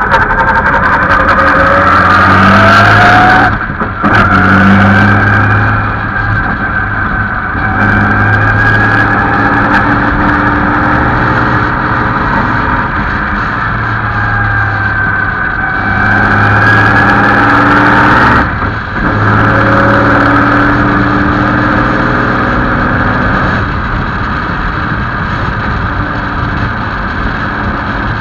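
Vintage Bentley's 6½-litre Speed Six straight-six engine, heard from onboard, accelerating with rising pitch. The sound breaks off briefly twice for gear changes, once about four seconds in and again about two-thirds of the way through. In between and afterwards it runs more steadily at speed.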